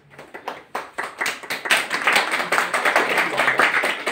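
Small audience applauding, the clapping swelling in about a second in and then holding steady.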